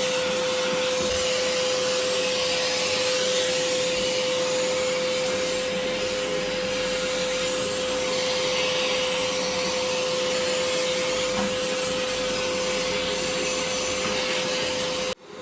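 Vacuum cleaner running steadily with a constant whine, sucking built-up dust out of the inside of a gas fan heater. The sound cuts out sharply for a moment near the end.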